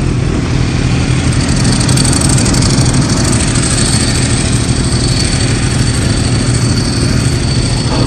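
Kawasaki Ninja H2's supercharged inline-four engine running steadily at low revs as the bike rolls slowly, with no revving.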